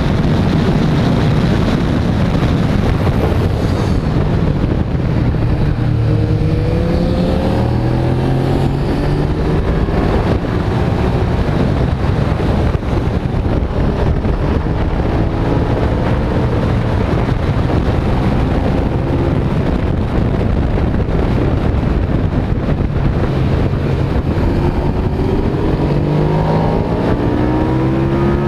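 Motorcycle engine heard onboard at track speed, its pitch climbing repeatedly as it accelerates through the gears, under a constant rush of wind over the microphone.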